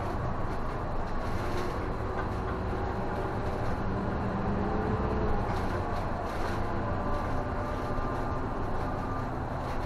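Isuzu city bus driving along at a steady pace, heard from inside the cabin: continuous engine and road noise with faint steady tones over it.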